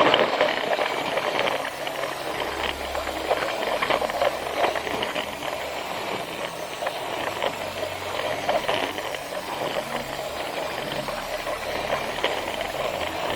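Plarail battery-powered toy train running on plastic track: a steady motor whir with irregular rattling clicks from the wheels and track joints.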